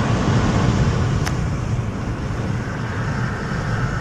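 Steady road and engine noise inside a moving vehicle, with a deep rumble underneath; a brief click about a second in.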